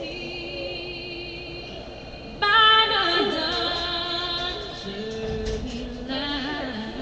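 Singing with music: a high voice holds long notes with a wavering pitch, coming in suddenly louder about two and a half seconds in.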